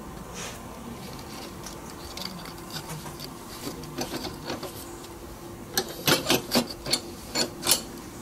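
Sharp metal clicks and scraping as steel locking pliers grip and work a heated, bent piece of rebar held in a bench vise. The clicks are sparse at first and come thick and loud over the last couple of seconds, over a faint steady hum.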